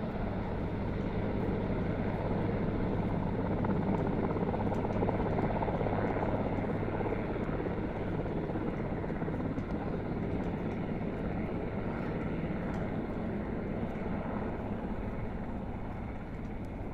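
Marine Corps helicopter flying a go-around orbit after a waved-off landing, its rotor and engine drone steady, growing louder about five seconds in and easing off toward the end.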